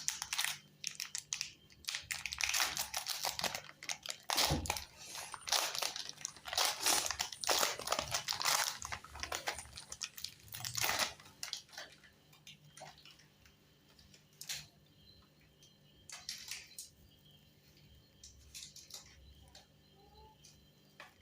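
Crinkling and crunching from a packet of crunchy wafers being handled, in dense bursts for about twelve seconds, then only now and then.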